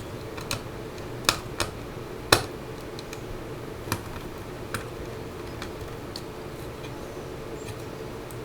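Scattered light clicks and taps of a small Phillips screwdriver working the hard drive's mounting screws in a computer case, most of them in the first five seconds, over a faint steady hum.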